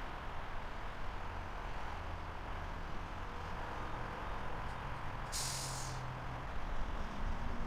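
Low, steady rumble of a railroad locomotive, with a short, sharp burst of air hiss about five seconds in from the train's air brakes.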